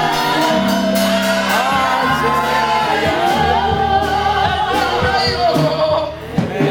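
Gospel worship music with voices singing over a steady beat, echoing in a large hall; the sound dips briefly near the end.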